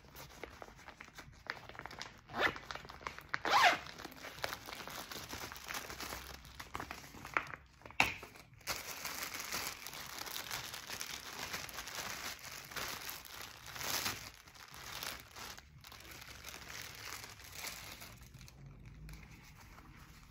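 Clear plastic packaging of goalkeeper gloves crinkling and rustling as it is handled, in irregular crackles with louder crinkles about two and a half, three and a half and eight seconds in, easing off near the end.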